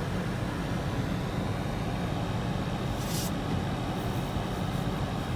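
Steady road and engine noise of a moving car, heard from inside the cabin, with a short hiss about three seconds in.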